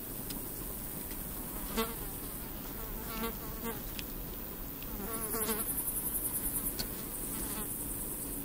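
Flying insects buzzing past several times, each buzz brief and wavering in pitch. Behind them is very high-pitched insect stridulation, which pulses rapidly for about two seconds a little past the middle and then runs on steadily near the end.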